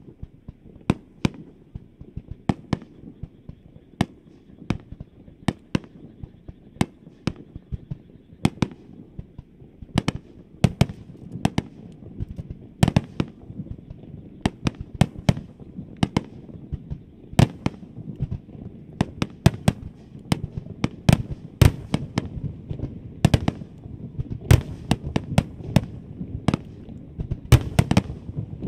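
Fireworks display: aerial shells bursting one after another in sharp bangs over a low rumble of echoing reports. The bursts come thicker and louder as it goes on.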